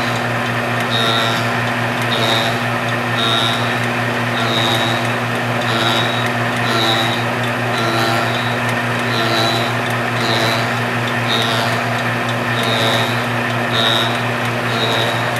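Belt-driven fly cutter on a rose engine ornamental lathe, spinning steadily over a constant motor hum while it cuts ash wood. A higher-pitched cutting hiss swells and fades about once every 0.7 seconds as the cutter bites into the wood in pulses.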